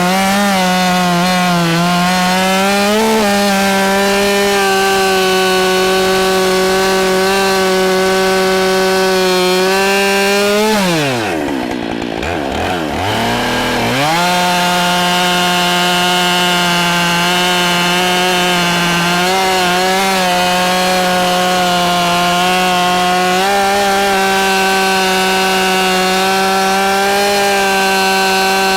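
Husqvarna 572 XP two-stroke chainsaw running at full throttle, cutting through large oak logs. About 11 seconds in, the revs drop sharply as the throttle is let off, then climb back to full speed about three seconds later and hold steady.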